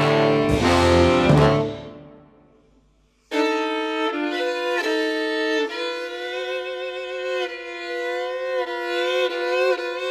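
Small mixed ensemble with violin soloist playing a contemporary piece: a loud full chord with deep low notes that fades away into a short silence about two seconds in. The violin then comes back in on long held melody notes over sustained accompaniment, the notes shifting every second or so.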